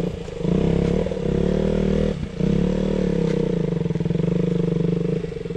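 Motorcycle engine pulling at low revs as the bike is ridden slowly through mud, the throttle eased off and reopened twice.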